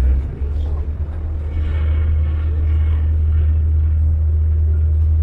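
Steady low rumble aboard a moving boat on the water, uneven for the first half-second and then even.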